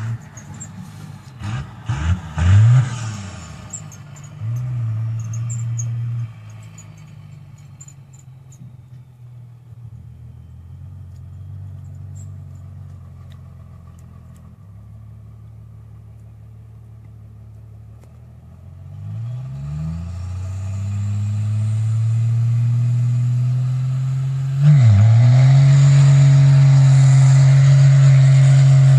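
Cummins turbo-diesel engine revving a few times, settling to idle, then climbing steadily in revs and holding high with the turbocharger spooled up and hissing over the engine note.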